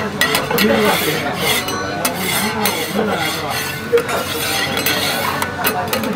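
Metal spatulas scraping across a steel teppanyaki griddle, with repeated short scrapes and clinks of metal on metal as the plate is scraped clean of grease.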